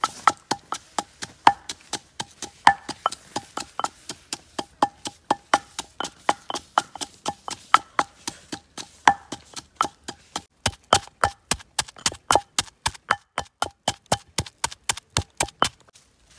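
Rapid, steady wooden chopping, about three to four strikes a second, each with a short hollow ring. It stops near the end.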